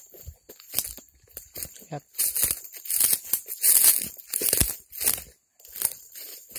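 Footsteps crunching and rustling through dry leaf litter and weeds, in irregular bursts that are loudest about three to four seconds in.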